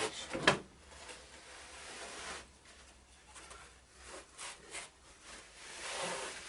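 Plywood crosscut sled sliding along a table saw's top, its wooden guide runners rubbing against the table edges, with a sharp wooden knock about half a second in.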